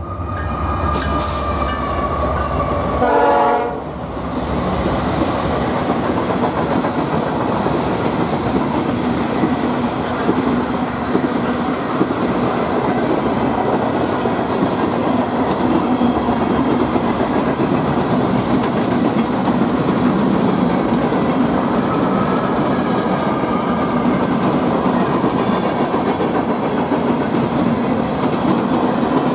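Freight train passing close by. The lead locomotive's Nathan K5HL five-chime air horn sounds and falls in pitch as it goes past, ending about four seconds in. After that comes a long, steady rumble and clatter of loaded tank cars and hoppers rolling over the rails.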